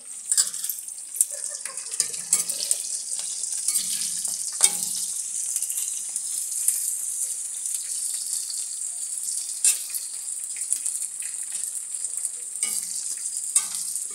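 Green chillies sizzling as they fry in hot oil in a metal kadhai, with a steady hiss. A metal spoon stirring them scrapes and knocks against the pan now and then, in short sharp clicks.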